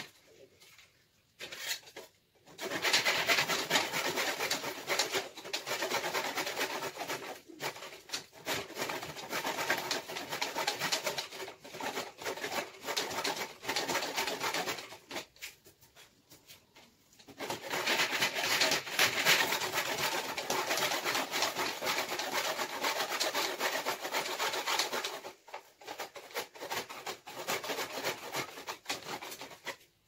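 Tenon saw cutting through a thick fallen branch held in a workbench vise: rapid back-and-forth strokes rasping through the wood. The sawing starts a couple of seconds in, pauses for about two seconds around the middle, resumes, and turns to weaker, broken strokes near the end.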